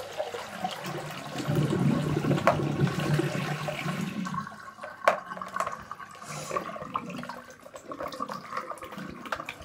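Water running from a tap into a sink as a bowl and spoon are rinsed, loudest in the first few seconds and easing off about four and a half seconds in, with a few sharp knocks of the utensils against the bowl.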